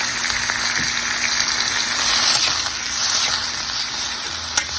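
Tomato, green chillies and garlic paste sizzling in hot oil in a pan as the masala fries, with a single sharp tap near the end.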